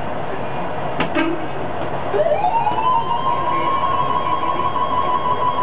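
Uerdingen railbus diesel engine running, heard from the driver's cab. A couple of sharp clicks come about a second in, then a whine rises in pitch and holds steady as the engine revs up under throttle.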